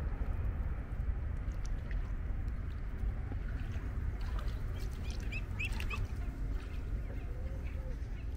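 Waterfowl calling over a steady low rumble: a few short high chirps about five seconds in, then a lower drawn-out call near the end.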